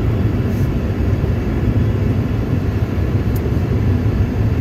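Steady low rumble of an airliner cabin in flight: engine and airflow noise heard from inside, near a window seat.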